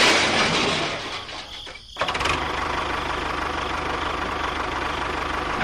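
A rushing noise fades out, then about two seconds in a small engine starts up abruptly and runs steadily with an even, rapid firing pulse.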